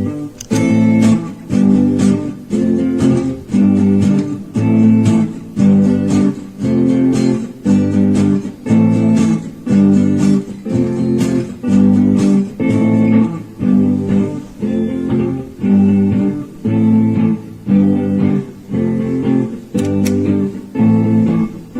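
Guitar strumming a repeating chord pattern in a steady, even rhythm, played back and layered by a looper pedal.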